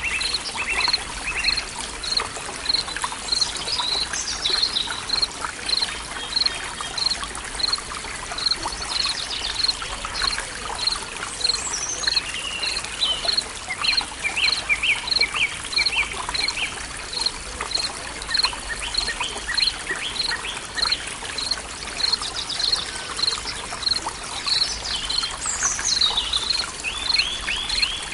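Forest ambience of water trickling and running, with birds singing over it: one repeats a short high note about every three-quarters of a second throughout, while others break in with quick trills.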